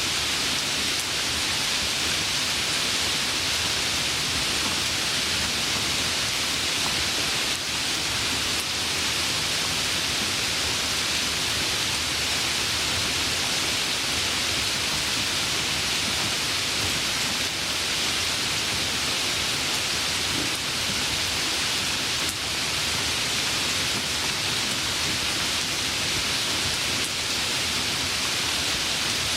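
Steady, even rain falling, a constant hiss with no thunder or other sounds standing out.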